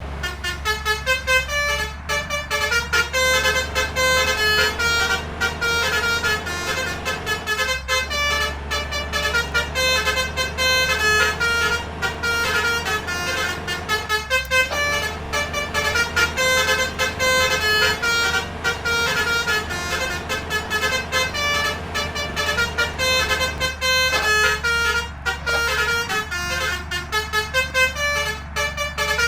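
Multi-tone 'telolet' basuri bus horn playing a quick melody of short tooting notes, over a steady low engine hum.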